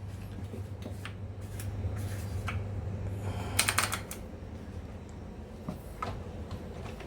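Scattered light clicks and taps over a steady low hum; the hum stops about four seconds in, just after a short rustling burst.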